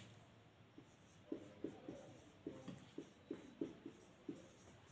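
Faint chalk strokes on a board as a word is written by hand: a series of short, irregular taps and scrapes starting about a second in.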